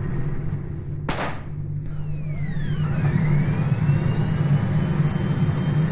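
Synthesized sci-fi sound effects: a heavy low rumbling drone throughout, a short whoosh about a second in, then falling electronic sweeps crossed by a rising sweep that settles into a steady high tone.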